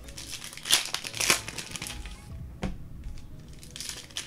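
Plastic-wrapped trading card boxes and packs being handled and opened: wrapping crinkles and crackles in a few short irregular bursts.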